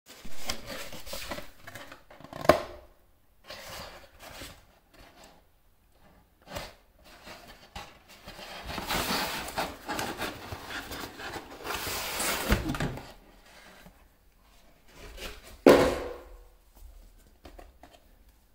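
Cardboard packaging handled: a cardboard mailer sleeve rustling and scraping as a small watch box is slid out of it. Sharp knocks come in between, one about two and a half seconds in and a louder one near sixteen seconds.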